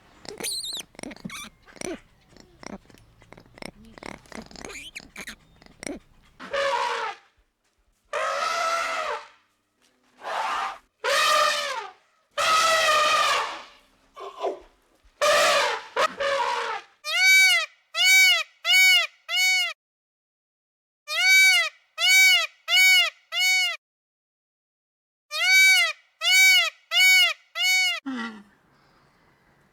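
Animal calls: a few seconds of clicking and rustling, then a run of drawn-out, bleat-like calls, then three sets of four identical short, high chirps.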